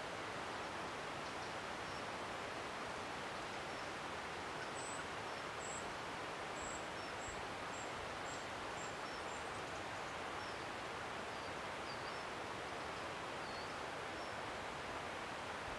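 Small birds giving high, thin calls in woodland: a run of about eight short notes near the middle, with scattered chirps around it. Behind them is a steady rushing background.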